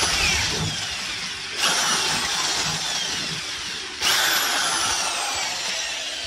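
Corded electric drill with a 6 mm metal drill bit drilling a pilot hole through plasterboard at a metal stud. The motor surges three times: at the start, about a second and a half in, and again about four seconds in, each time with a whine that falls in pitch.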